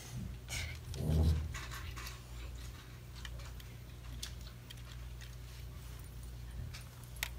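LEGO Mindstorms EV3 robot puppy playing recorded dog sounds through its brick's small speaker, set off by its toy bone held to its colour sensor. The sound is a run of quick crackly clicks, with a short louder low sound about a second in.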